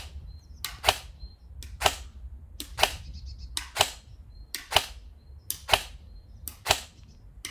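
AR-15-style airsoft electric gun (AEG) firing single shots on semi-auto, about one sharp report a second, roughly eight shots.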